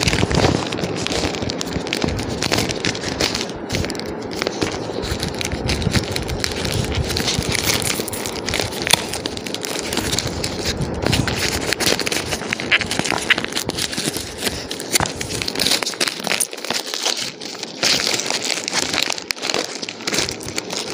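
Clear plastic bag and white tissue paper crinkling and rustling as a wrapped gift is pulled out and unwrapped by hand: a continuous stream of small crackles.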